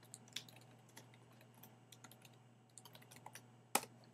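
Faint typing on a computer keyboard: a scatter of light keystrokes, with one louder key press near the end.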